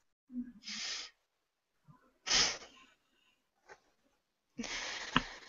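A person's breathy exhales: three short bursts of breath with silence between, the middle one loudest.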